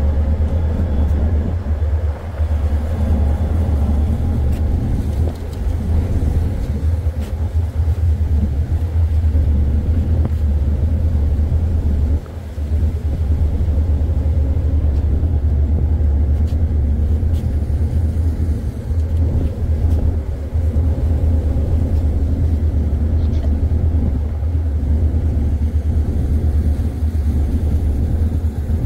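Ship's engine running with a steady low drone while the vessel is underway.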